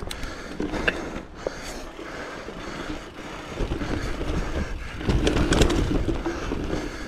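Mountain bike descending a rough dirt trail: tyres rolling and scrabbling over loose dirt with the bike rattling and knocking over bumps, plus a low rumble of wind on the mic. The rattle and rumble grow louder about five seconds in.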